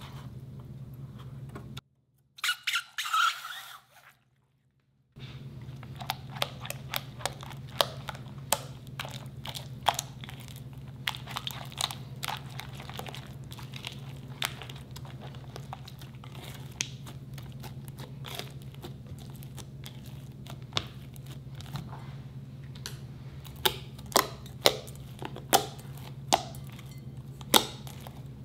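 Thick white slime being stirred with a spatula and then squeezed and kneaded by hand in a glass bowl, giving many quick sticky clicks and crackling pops. The pops grow sharper and louder near the end, over a steady low hum.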